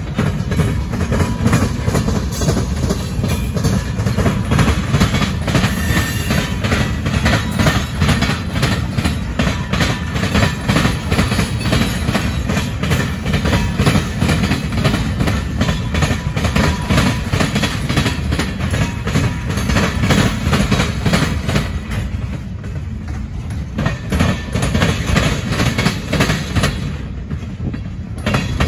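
Freight train of tank cars rolling past at close range, its steel wheels clacking in a steady rhythm over the rail joints and the diamond crossing, with a continuous rumble underneath.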